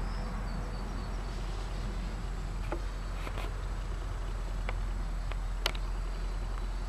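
Faint, distant buzz of a radio-controlled P-51D Mustang model plane's motor flying high overhead, over a steady hiss. Several sharp clicks come in the second half, the loudest near the end.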